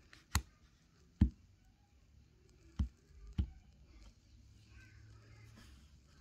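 Four sharp taps or knocks at irregular intervals, over faint background noise.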